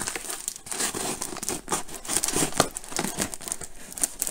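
Brown packing tape and cardboard flaps of a heavily taped shipping box being torn and pulled open by hand, with irregular crinkling and ripping.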